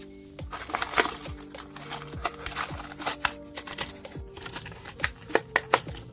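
A Hot Wheels blister pack being torn open by hand: the cardboard backing card ripping and the plastic blister crinkling in an irregular string of sharp crackles and snaps.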